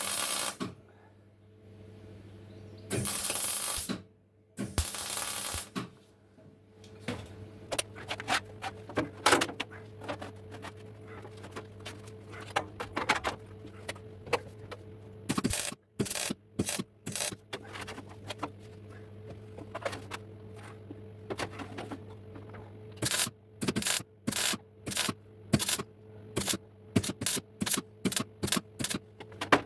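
Sheet metal being worked by hand on an exhaust silencer: a few short scraping rushes early on, then many sharp metallic taps and knocks, about two a second near the end, over a steady low electrical hum.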